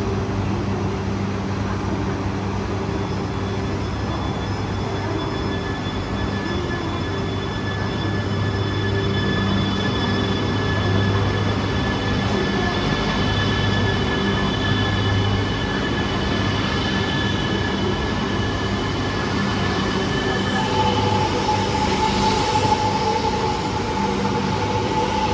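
Shinkansen bullet train moving along the platform: a steady low hum and several high whines over running noise, with one whine rising in pitch in the last few seconds.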